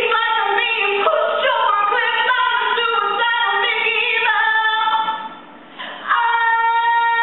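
A woman singing a quick run of phrases on stage, then holding one long high note from about six seconds in.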